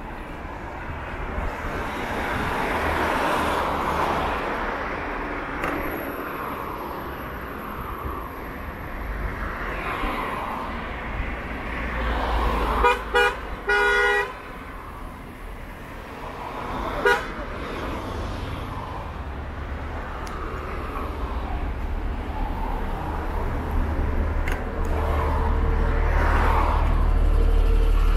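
Street traffic passing, with a vehicle horn sounding a few short toots about halfway through, the last one a little longer. A low engine rumble grows louder near the end.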